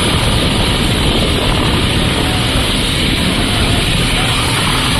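Mi-17 helicopter idling on the ground with its rotors turning before takeoff: a loud, steady turbine and rotor noise.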